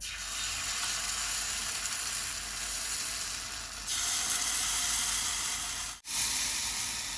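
Pandan batter sizzling as it is poured into the hot, oil-greased cups of a kuih cara mould: a steady hiss that gets louder about four seconds in, as more cups are filled, and cuts out for an instant about six seconds in.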